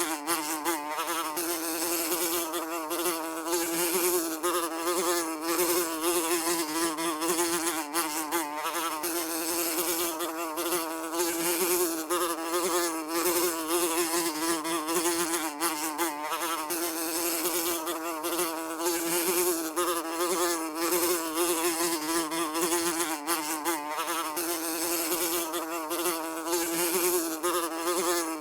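Housefly buzzing continuously, its wingbeat hum wavering up and down in pitch as it flies about.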